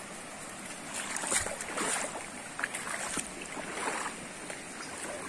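Shallow river water running over rocks, with a run of irregular splashes from about one to four seconds in.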